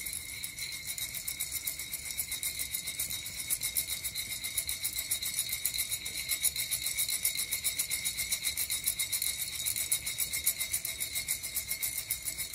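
Coffee beans rattling and sliding inside a Nuvo ceramic hand roaster as it is shaken back and forth over a gas burner, in a quick, even rhythm. A steady high tone runs underneath.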